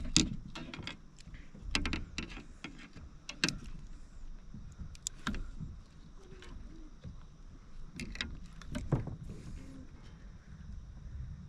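Scattered clicks and knocks of gear and a caught fish being handled aboard a kayak, over a low steady rumble.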